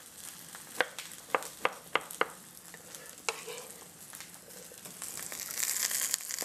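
A chef's knife slicing a pickle on a wooden cutting board: about six sharp taps in the first half. About five seconds in, cut hot dogs sizzle in a skillet over a gas flame, a steady frying hiss.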